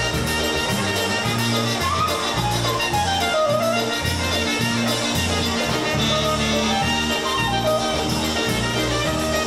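Live polka band playing a dance tune, with a bass line stepping steadily under the melody.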